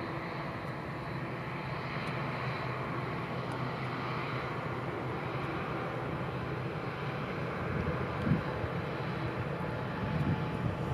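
A Boeing 787-8 Dreamliner's jet engines run steadily as the airliner rolls along the runway after touchdown, with a faint high whine in the first few seconds. A few low thumps come near the end.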